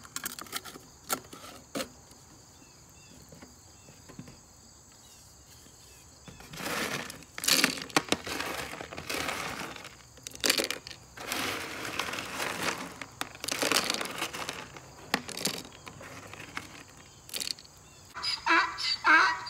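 Crickets trilling steadily, with a few sharp clicks near the start, then a series of rustling, crunching noises each lasting about a second. Music comes in near the end.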